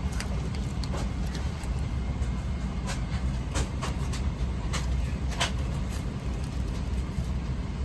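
Steady low rumble of an airliner cabin on the ground (a Boeing 777-300ER before pushback), with a few short sharp clicks scattered through the middle.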